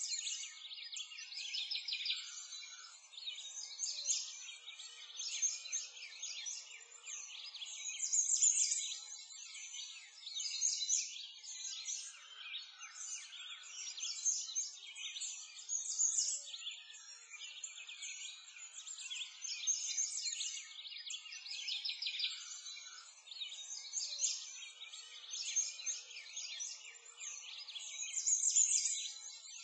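Birdsong: a chorus of small birds chirping and twittering without a break, high-pitched, with no low sounds beneath it.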